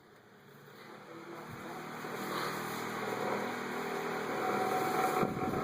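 Galaxy 2154 9-inch desk fan spinning up from low to high speed, its whoosh and motor hum growing steadily louder. It rattles as it oscillates.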